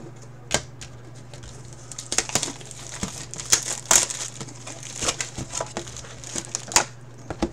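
Plastic shrink wrap crinkling and tearing in irregular crackles as it is ripped off a sealed box of trading card packs, with a steady low hum underneath.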